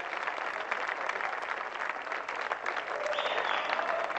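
Studio audience applauding: dense, steady clapping, with a brief high tone about three seconds in.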